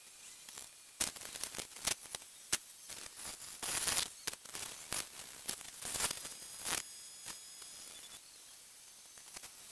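Pencil scratching on a drawing board in short strokes and quick scribbled shading, with a longer scratchy stretch about four seconds in and a few light taps.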